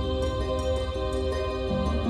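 Background music: held notes over a steady low bass, with one note changing near the end.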